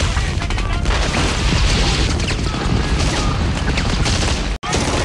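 Intro music, loud and dense, mixed with booms and crash effects; it cuts out abruptly for an instant about four and a half seconds in, then carries on.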